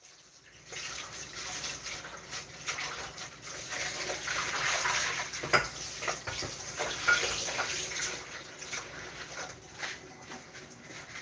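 Water running and splashing, with light clicks and knocks over it, swelling and easing off again about midway.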